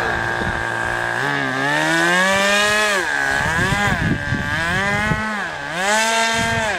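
Radio-controlled model boat's motor running on the water, its pitch rising from about a second in, then dipping and climbing again a few times as the throttle is eased and opened.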